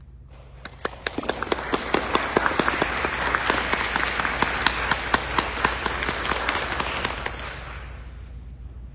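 Audience applauding: many people clapping, starting suddenly near the start and dying away after about seven seconds.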